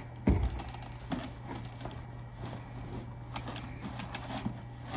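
Metal D-ring eyelets on a leather boot rattling and clicking as the boot is handled and drawn out of its cotton boot bag, with the cloth rustling. A thump about a third of a second in.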